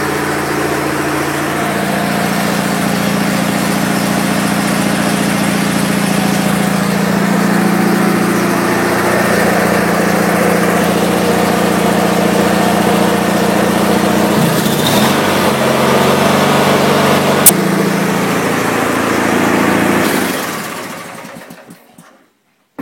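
Murray GT lawn tractor's 20 hp Briggs & Stratton engine running through its custom exhaust and mufflers, a steady engine note. There is a sharp click a few seconds before the end, and the engine sound then dies away.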